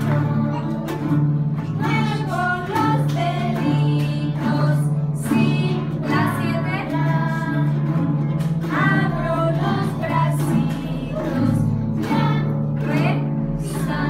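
A group of children strumming chords on small acoustic guitars and singing a song together.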